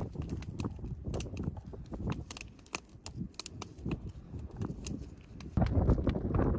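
Irregular sharp clicks and taps over a low rumble, with a louder, denser rustling noise starting about two-thirds of the way through.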